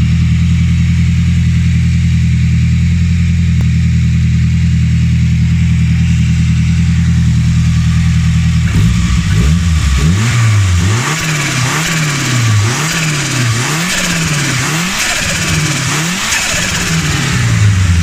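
Vauxhall Corsa B's turbocharged Saab B204 four-cylinder engine idling steadily, then blipped up and down about once a second from about halfway in. On each lift-off the turbo flutters with a rapid 'stu-stu-stu' chatter.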